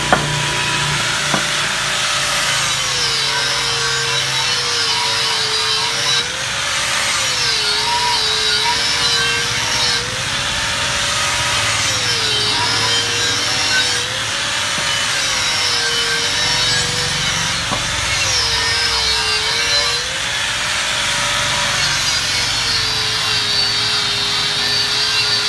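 Electric angle grinder with a red abrasive disc grinding the bead edge of an aluminium scooter rim, smoothing metal pitted by tyre sealant so the new tyre will seal. The motor's hum drops in pitch each time the disc is pressed into the rim and rises again as it eases off, repeatedly, over a steady scraping hiss.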